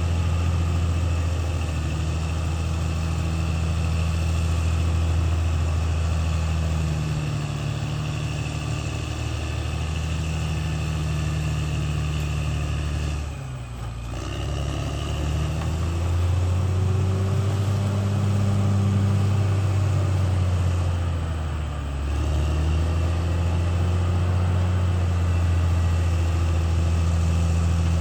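Caterpillar D6R XL bulldozer's diesel engine running under changing load, with a faint steady high whine above it. The engine note dips sharply about halfway through and again about three quarters of the way in, then picks back up each time.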